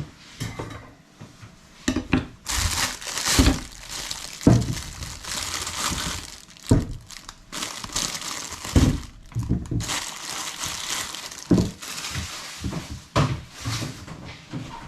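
Irregular crinkling and rustling in bursts, broken by several sharp knocks.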